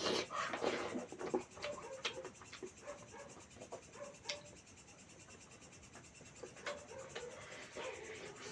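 Chewing and wet mouth noises close to the microphone: a string of soft smacking clicks, busiest in the first couple of seconds and again near the end.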